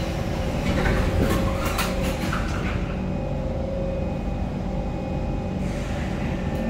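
Kawasaki Heavy Industries C151 metro train running: a steady rumble with a steady motor hum through it, and a short spell of clattering in the first couple of seconds.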